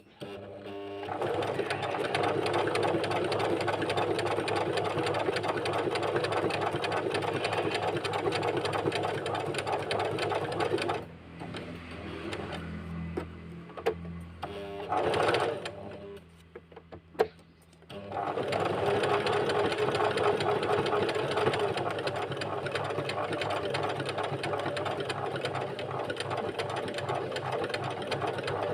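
Portable sewing machine stitching a buttonhole: it runs steadily for about ten seconds, stops for several seconds with a few clicks and one sharp knock, then runs again.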